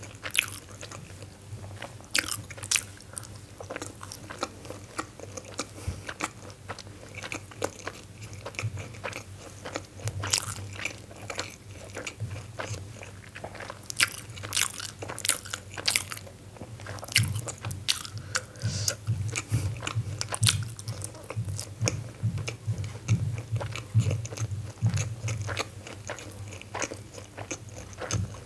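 Close-miked eating of steamed momos dipped in chili chutney: soft bites and chewing with many sharp, wet mouth clicks and smacks, busiest in the second half.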